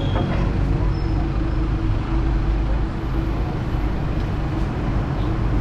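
City street traffic: a steady low rumble of passing road vehicles.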